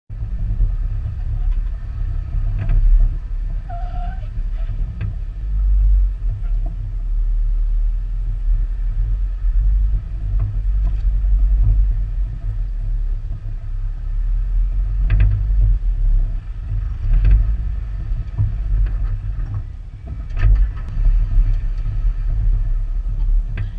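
Jeep crawling slowly over rough slickrock, a steady low rumble of engine and drivetrain with occasional sharp knocks scattered through it.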